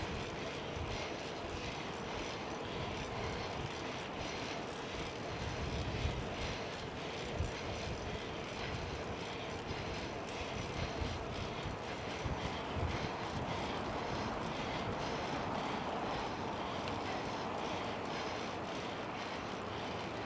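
Wind rushing over the microphone of a camera riding on a moving bicycle, with steady road and tyre noise. Low gusts of wind rumble now and then through the middle of the stretch.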